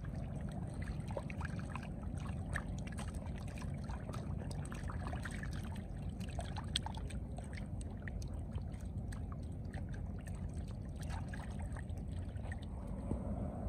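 A crowd of catfish thrashing in shallow muddy water: a constant patter of small splashes and wet slaps that thins out near the end, over a steady low rumble.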